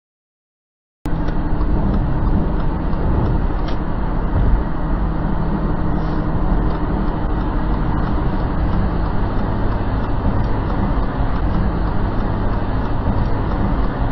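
Steady road and engine noise of a car driving at freeway speed, heard inside the cabin: an even low rumble that starts abruptly about a second in.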